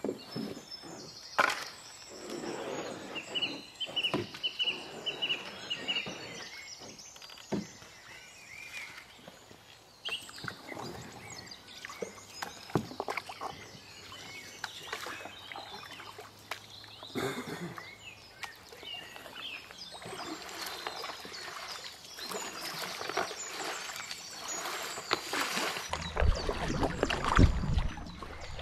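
Canoe paddles dipping and pulling through calm river water, with drips and light splashes. A bird sings with short repeated chirps in the first few seconds, and wind rumbles on the microphone near the end.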